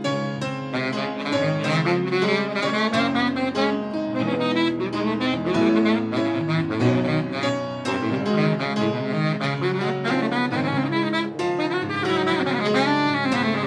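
Live band music with a baritone saxophone and a trombone playing, many quick notes over a steady beat.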